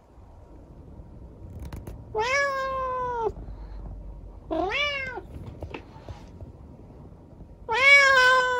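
Tabby cat meowing three times: a meow of about a second, a shorter one, then the loudest one near the end.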